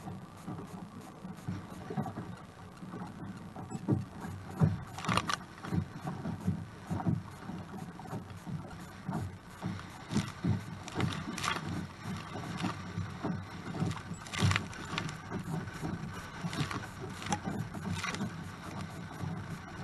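Choppy sea water splashing and slapping against a Hobie Outback kayak's plastic hull as it moves, with irregular louder splashes every few seconds. Gusting wind buffets the microphone throughout.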